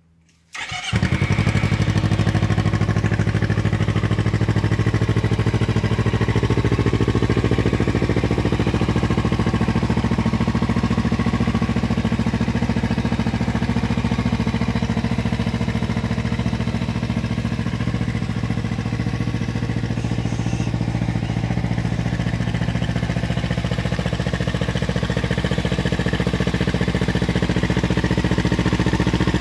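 Kawasaki Ninja 300's parallel-twin engine starting about a second in, then idling steadily.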